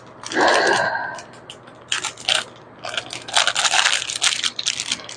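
Plastic jewelry packaging rustling and crinkling as a small bracelet is worked out of it, in a run of short, sharp rustles, with a louder, longer scrape about half a second in.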